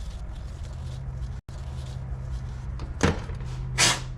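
Steady low electrical hum, then a short metallic scrape about three seconds in and a longer one near the end, from steel grinder-dog parts being handled while the set-screw hole is threaded.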